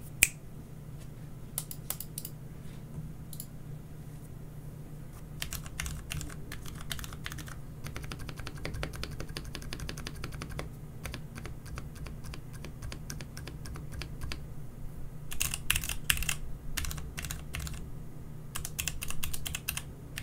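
A single sharp finger snap right at the start, then typing on a Logitech G513 mechanical keyboard with Romer-G tactile switches, lubed with Krytox and damped with three layers of foam inside the case. The keystrokes come sparse at first, then as steady fast typing from about five seconds in, with two louder bursts of fast keystrokes near the end.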